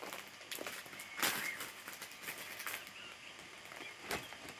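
Small plastic packets being handled: light crinkling and rustling with a few soft clicks, the loudest rustle about a second in.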